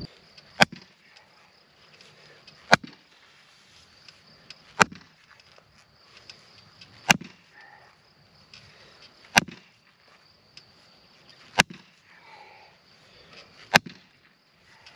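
Seven blows of a large mallet on top of a wooden fence post, driving it deeper into the ground, one sharp knock about every two seconds. Crickets chirr steadily in the background.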